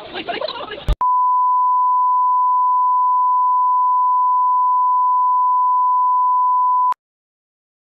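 Colour-bars test tone: one steady, high-pitched beep at a single pitch that starts with a click about a second in and cuts off suddenly about six seconds later.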